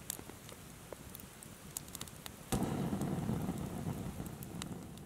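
Wood campfire crackling, with scattered sharp pops. Halfway through, a louder low rumbling noise comes in and slowly fades.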